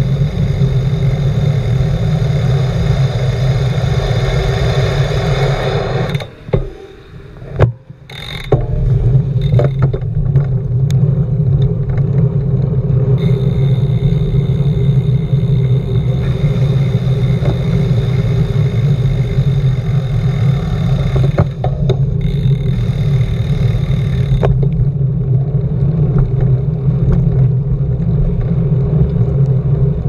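Steady wind noise on a bicycle-mounted camera's microphone while riding on a wet road with car traffic alongside. About six seconds in it drops away for roughly two seconds, with a couple of sharp clicks.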